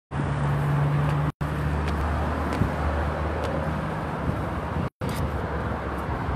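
Outdoor street ambience: a steady low hum over traffic noise, with a few light footsteps on concrete stairs. The sound drops out completely for a moment twice.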